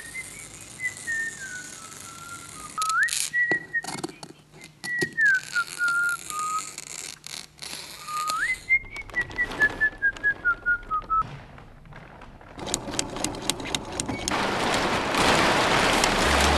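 A whistled tune in short, falling phrases, over a series of sharp snips from large shears cutting sail cloth. Near the end the whistling stops and stiff sail cloth rustles loudly as the sail is handled.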